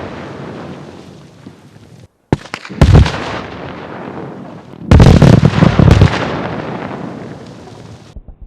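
Rock blasts in a utility trench cut through bedrock. A blast is dying away at the start, then two more go off, about two and a half and five seconds in, each a sudden bang that fades out over a few seconds.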